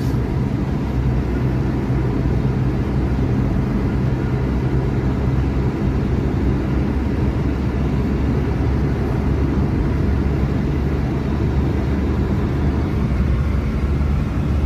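Car driving at speed, heard from inside the cabin: a steady low drone of engine and road noise.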